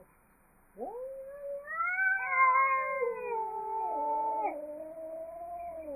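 Angry cats caterwauling: after about a second of quiet, a rising cry breaks into long, wavering yowls, with more than one wailing line overlapping.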